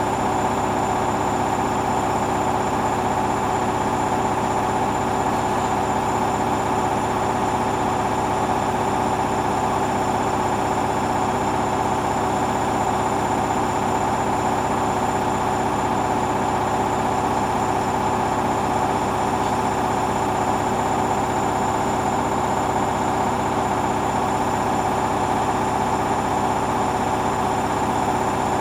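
Hoover washing machine running steadily in its final spin stage, the motor giving a constant whine with no change in speed.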